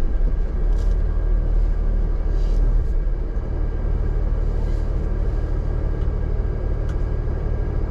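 Jeep engine running at idle, a steady low rumble with a few faint clicks.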